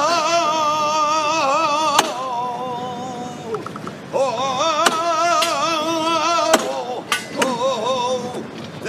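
A saeta: an unaccompanied flamenco-style solo song to the passing image, sung in long wavering, heavily ornamented held notes, with a short break about four seconds in. A few sharp clicks sound over it.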